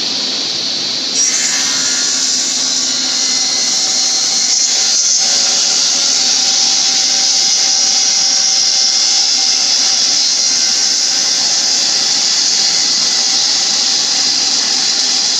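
Table saw running steadily with a high whine, its blade cutting into a turned wooden spindle fed across it in a sliding jig for a stopped, partial-depth cut.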